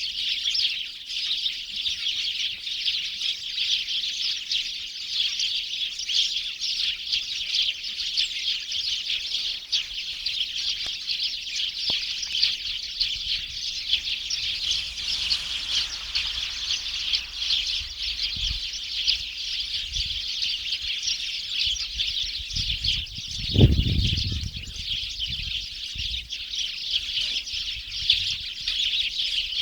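Small birds chirping continuously in a dense, overlapping chatter, with one dull low thump about three-quarters of the way through.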